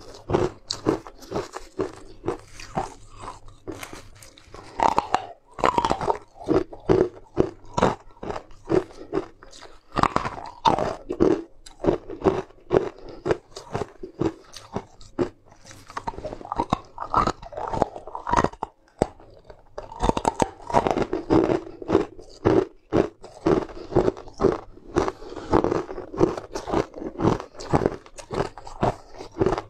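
Close-miked crunching and chewing of translucent sugar-crusted sweets, several crisp crunches a second with a few short pauses between bites.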